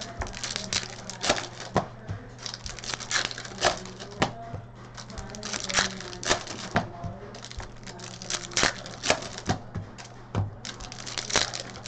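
Hockey card pack wrappers crinkling and tearing open, with cards clicking and rustling as they are handled, over a steady low hum.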